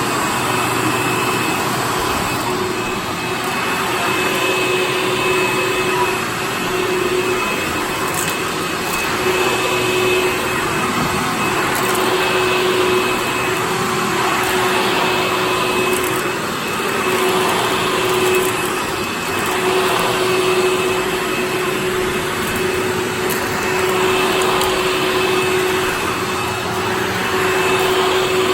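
Hoover Fold Away upright vacuum cleaner running steadily, a motor hum with a steady high whine, swelling and easing gently every few seconds. Its brush roll, which had been seized, is turning again.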